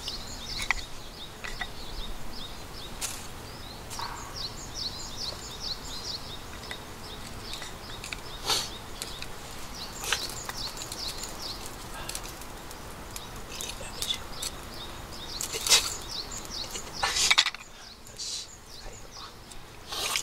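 Small birds chirping in a fast, repeated series through the first half. Scattered sharp wood snaps and knocks come from the small kindling fire as it catches and is built up.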